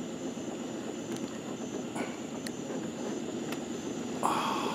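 Steady low engine drone, consistent with an idling boat motor, with a few sharp clicks. About four seconds in, a louder higher-pitched tone with overtones begins.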